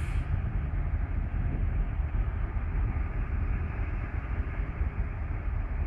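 Steady low rumble of a distant GM G26 diesel locomotive approaching along the track, mixed with noise from road traffic on the adjacent road.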